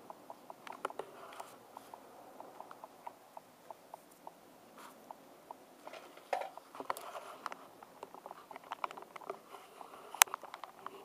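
Light clicks and taps from hands handling wires and a breadboard on a workbench, with one sharper click about ten seconds in. Through the first half there is a faint run of ticks, about four a second.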